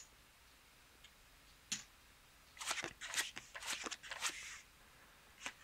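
A casino chip clicks down onto the felt, then playing cards are slid out of a dealing shoe and dealt onto the felt blackjack table: a run of short scraping swishes about halfway through, with a single click near the end.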